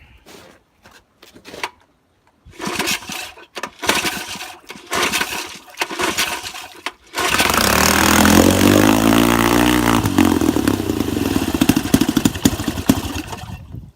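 1964 Wards Sea King 3 hp two-stroke outboard motor being started: several rough attempts that don't catch, then about seven seconds in it fires and runs, its speed sagging and picking up, and it dies just before the end.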